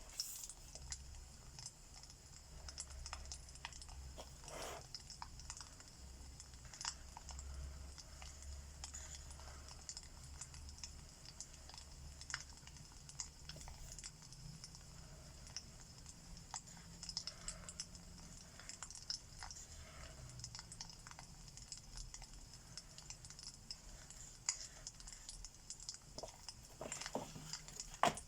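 Fireplace crackling: irregular small pops and snaps over a low rumble, with a cluster of louder clicks near the end.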